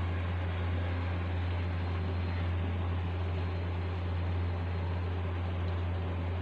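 A steady low hum with an even hiss above it, unchanging throughout.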